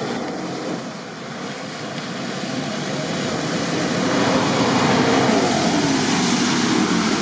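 Nissan Patrol SUV driving through a deep, muddy puddle: its engine revs while mud and water splash against the body. The sound grows louder as it approaches, and the engine pitch rises and then falls past the middle.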